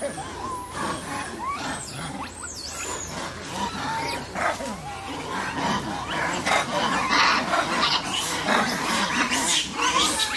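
A troop of long-tailed macaques calling: short squeaks and chirps that slide up and down in pitch, with harsh screeches coming thicker and louder in the second half.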